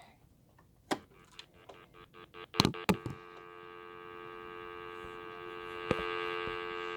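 A few clicks and taps, then from about three seconds in a steady, buzzy electronic tone plays through a phone speaker, growing slightly louder: an annoying ringtone sound.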